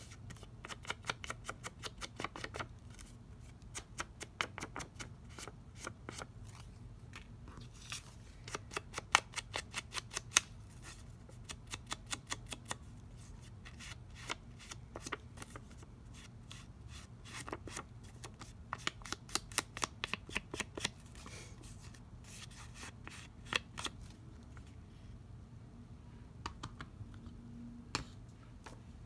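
Quick runs of light tapping and scuffing as pink ink is dabbed onto the edges of paper card, several taps a second with short pauses between runs.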